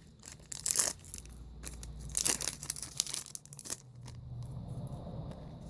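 Foil trading-card booster pack wrapper being crinkled and torn open, in a few short spells of rustling.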